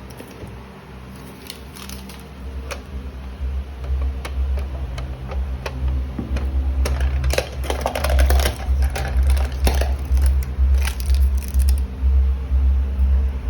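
Hands handling a plastic supplement tub and its packaging: irregular clicks, taps and crinkling, busiest in the middle, over a low rumble from the microphone being handled.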